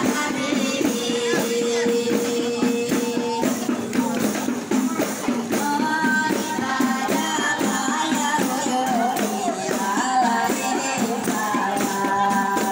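A women's rebana group singing over rebana frame drums, a steady beat of drum strokes throughout with sung lines on top.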